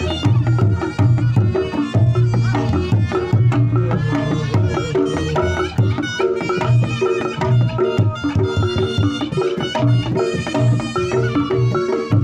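Reog Ponorogo ensemble playing: a wavering slompret melody over fast kendang drumming.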